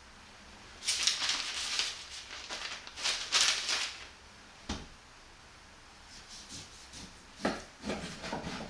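Rubbing or scraping strokes in two spells, then a single knock about five seconds in and a few short clatters near the end.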